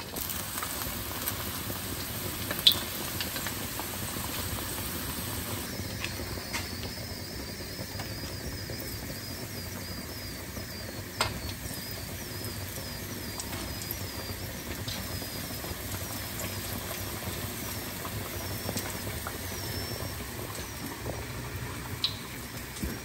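Chicken tenders deep-frying in a pan of hot oil, a steady sizzle and bubbling, with a few sharp clicks of metal tongs against the pan. Through the middle runs a string of faint, short, high chirps, about one a second.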